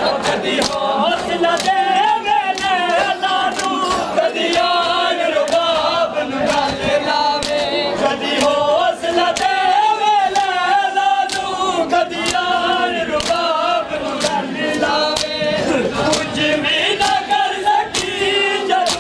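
Group of men chanting a noha together, with repeated sharp slaps of hands on bare chests (matam) beating time through it.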